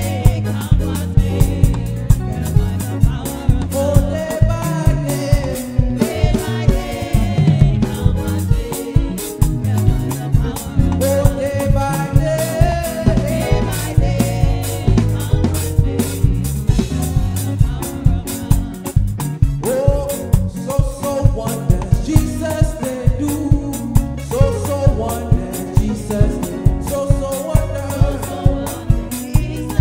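Live Ghanaian highlife-style gospel praise: a lead singer and backing vocalists singing over a band of drum kit, bass guitar and keyboards, with a steady danceable beat.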